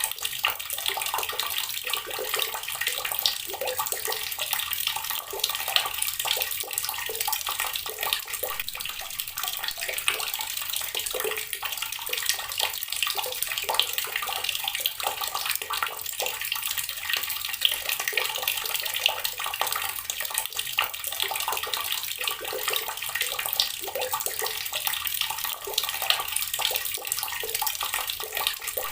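Water tap running steadily, its stream splashing into water below with a constant hiss and small irregular splashes.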